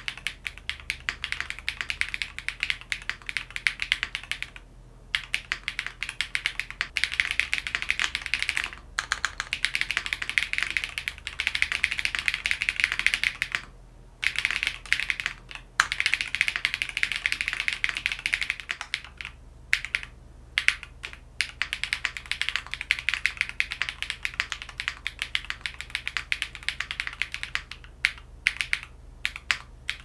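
Fast typing on a Blueberry 65% gasket-mount custom mechanical keyboard with a polycarbonate plate, lubed Geon Black linear switches and GMK Minimal 2 keycaps: dense key clacks broken by a few short pauses. About two-thirds in, the keyboard is on a deskmat instead of the bare desk.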